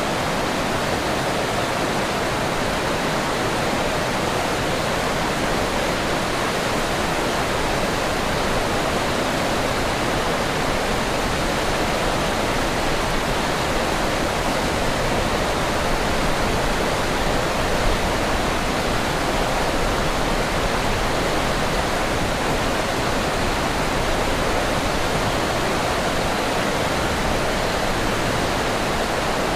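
Forest river rushing over rocks: a steady, full rush of water.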